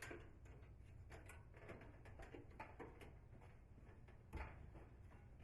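Faint, scattered light clicks and taps of handling as the dryer belt is looped around the idler pulley and motor shaft, with a slightly louder knock about four seconds in.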